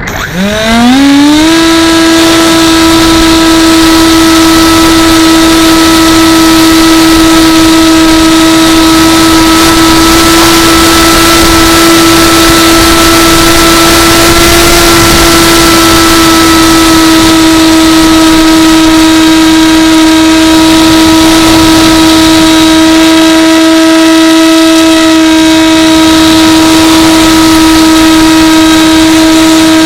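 Electric motor and propeller of an AXN Floater remote-control plane whining loudly: it spins up over about a second and a half, then holds one nearly steady high pitch at full throttle.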